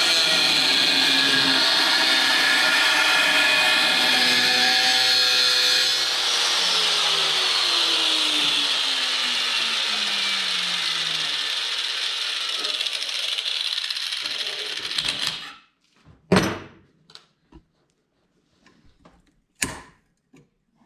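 Angle grinder with a cut-off wheel cutting through an old steel saw blade: a steady high whine with grinding noise, some of its tones sliding down in pitch partway through. It stops about three quarters of the way in, and a few sharp knocks and clicks follow.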